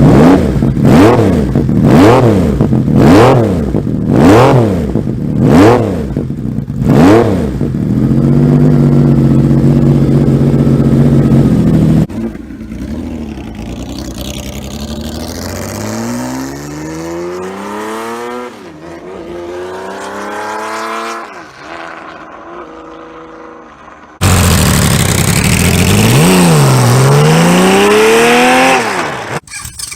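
Kawasaki KZ1300's inline-six engine and exhaust being revved in sharp throttle blips about once a second, then held at high revs. After a cut it is quieter, climbing in pitch through the gears with a drop at each shift. At a second cut it is loud again, falling and rising once in revs.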